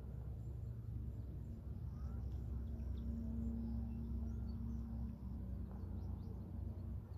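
Outdoor ambience: a steady low rumble with a hum that swells in the middle, and a few faint bird chirps.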